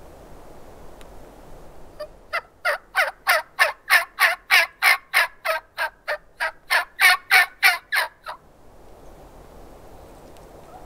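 A run of about twenty turkey yelps, sharp notes each falling in pitch, at about three a second for some six seconds. The run starts about two seconds in and stops abruptly.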